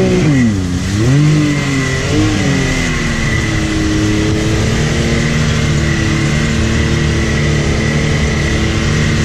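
Can-Am Maverick X3 Turbo side-by-side's engine, heard from the cab while driving: it revs up and down in quick surges for the first couple of seconds, then settles to a steady cruising speed, over a wash of wind and tyre noise and a thin steady high whine.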